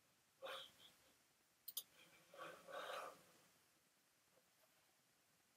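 Near silence with a person's faint breathing: a short breath about half a second in and a longer one from about two and a half to three seconds. A quick double click of a computer mouse comes just under two seconds in.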